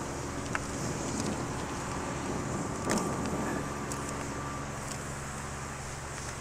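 A steady low motor hum, with a few sharp knocks and a short scrape about three seconds in as the steel trough holding the extinguished titanium powder is handled.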